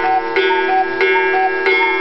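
Outro music: a bright, bell-like tune over a steady tick about three times a second, with a short two-note figure repeating.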